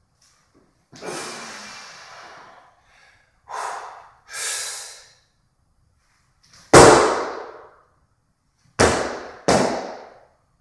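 A weightlifter breathing hard between jerks, then a loud stomp about seven seconds in as his feet land the split under a 76 kg barbell on a wooden platform, followed by two lighter foot stomps as he steps back out of the split.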